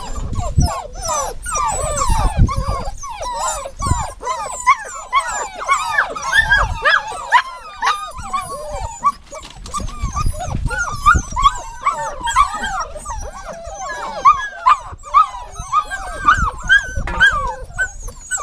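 Dog whining and whimpering: a continuous run of short, high cries that bend up and down in pitch, often overlapping, with occasional low thumps.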